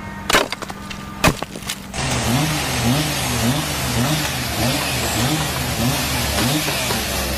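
Two loud crashes about a second apart. Then a motor-driven machine runs with a loud hiss and a low hum that wavers up and down about twice a second.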